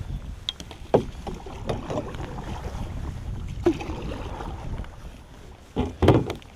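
Knocks and thumps aboard a small fishing boat over a low rumble of wind on the microphone; a few sharp knocks come through, and the loudest pair falls near the end.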